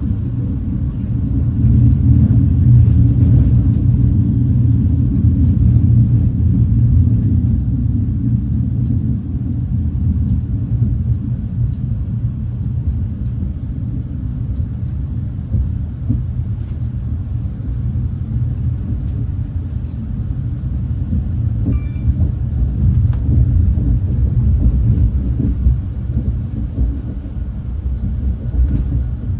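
Steady low rumble of a Renfe class 130 (Talgo 250) high-speed train running along the line, heard from inside the carriage. It grows a little louder a couple of seconds in and eases off after about eight seconds.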